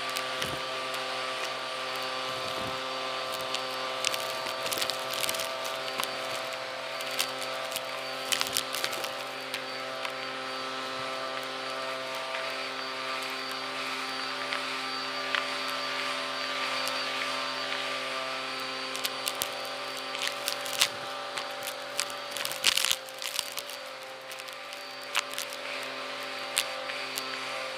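Vacuum cleaner motor running steadily with a whine, its dusting-brush attachment sucking up lint, fluff and crumbs from a rug. Scattered clicks and crackles of debris going up the hose, thickest about twenty seconds in.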